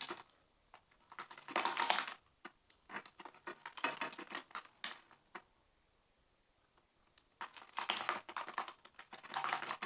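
Clear slime of transparent glue and activator being stirred in a container: irregular bursts of squishy, crackling little clicks, with a short quiet gap in the middle. The activator is being worked into the glue.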